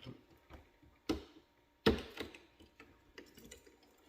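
Plastic parts of a glass grinder being handled, with light clicks and knocks and two sharper knocks about one and two seconds in, as the sponge assembly is lifted out with the motor off.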